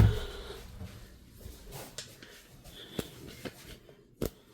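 A low thud as something is set down, fading away, then quiet room tone with a few faint clicks and knocks of things being handled, the sharpest near the end.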